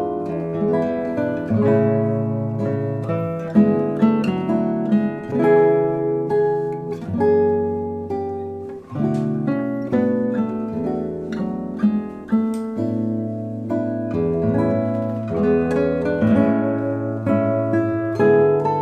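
Background music: an instrumental piece of plucked acoustic guitar, with bass notes and chords that shift every second or two.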